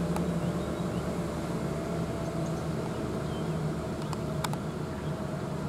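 Diesel engines of heavy goods trucks running steadily as they crawl along a winding hill road, a continuous low drone.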